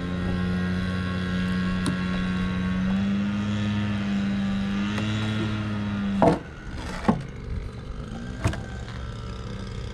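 Power drill running steadily under load for about six seconds, typical of driving a long screw or boring into a timber frame. Its pitch rises slightly midway, then it stops suddenly. A few sharp knocks follow.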